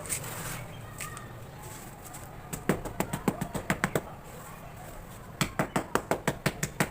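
Quick runs of sharp taps on hardened cement cakes: a burst of about eight taps a second starting about two and a half seconds in, a short pause, then another run of taps from about five and a half seconds in.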